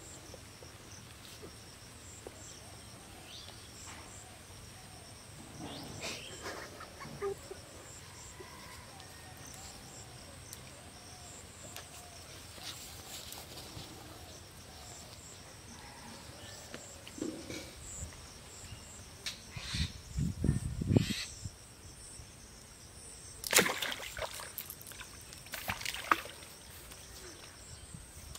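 Water splashing and sloshing as a hooked fish is jerked out of a lotus pond on a bamboo pole, loudest a few seconds before the end, over a steady high chirring of insects.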